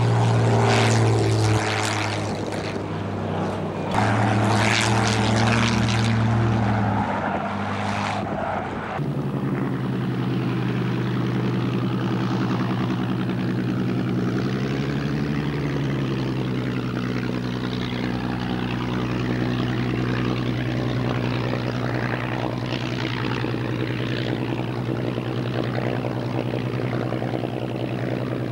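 Supermarine Spitfire's Rolls-Royce V12 piston engine and propeller: two loud passes of the fighter in flight. After about nine seconds the sound changes abruptly to the engine running steadily with the aircraft on the ground.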